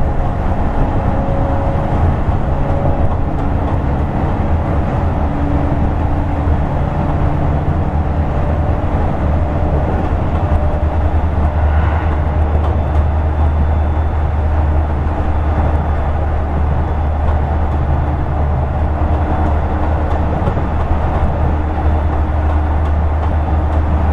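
Toei 10-300 series commuter train heard from on board while running: a steady low rumble of wheels on rail, with faint motor tones that come and go.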